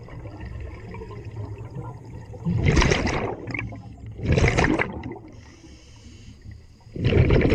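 Scuba diver breathing through a regulator underwater: exhaled air bubbles out of the regulator in three loud gurgling gushes, about two and a half seconds in, about four and a half seconds in, and near the end, with quieter stretches between them.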